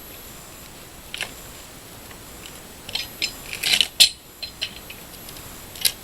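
Wooden pallet being pried apart with a Pallet Buster pry bar: scattered creaks and cracks of wood and nails giving. A cluster of cracking about three to four seconds in ends in a single sharp, loud crack.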